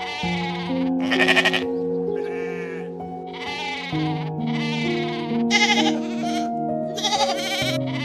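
Sheep bleating over and over, about eight wavering bleats roughly a second apart, some louder than others, over soft background music of piano and guitar.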